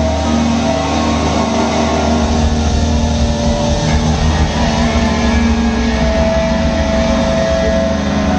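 A rock band playing loud live: drums and electric guitars, with held guitar notes ringing over a heavy, steady low drone.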